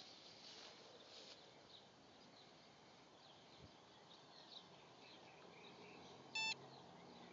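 A short electronic beep from an ANRI-01-02 Sosna dosimeter-radiometer about two-thirds of the way in, the signal that its measurement count has finished. Faint bird and insect chirps underneath.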